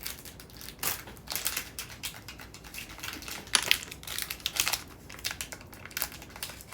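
Crinkling and rustling of plastic packaging as small kit items are handled and opened, with irregular light clicks and taps, the sharpest a little over three and a half seconds in.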